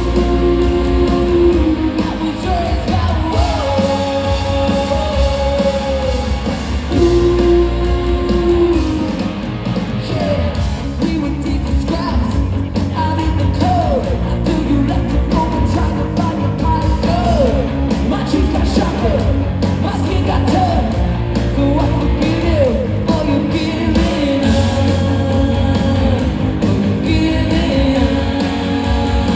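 Ska-punk band playing live: a woman sings lead over electric guitar, bass guitar, drums and keyboard, with a heavy bass end.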